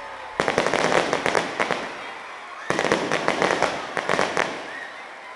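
Aerial fireworks display: two rapid volleys of sharp shell-burst reports, the first starting about half a second in and the second near the middle, each a quick string of bangs that fades away.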